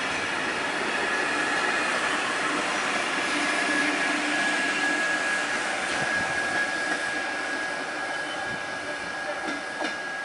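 Belgian double-deck passenger train (M6 coaches) rolling past and away, a steady rumble of wheels on rail with a thin high whine through it. The sound fades gradually over the last couple of seconds, with a couple of sharp wheel clacks near the end.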